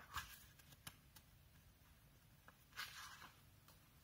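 Near silence: room tone with a few faint, brief rustles and small clicks.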